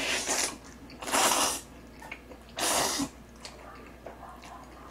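A person slurping instant jjajang noodles three times, short sucking slurps about a second and a half apart.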